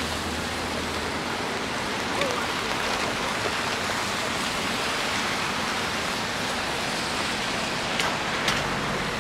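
Steady rain falling on city pavement, an even hiss throughout, with a few sharp taps near the end.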